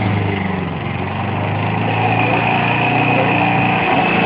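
Petrol lawn mower engine running steadily, dipping slightly about a second in and then picking up again.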